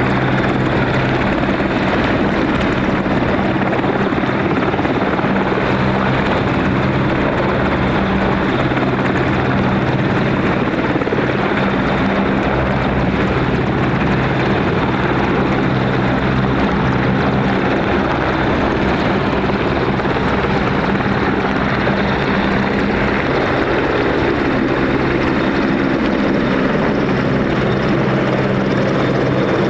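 Royal Navy Merlin helicopter hovering low: a loud, steady rush of rotor and turbine noise with a low, even hum that does not let up.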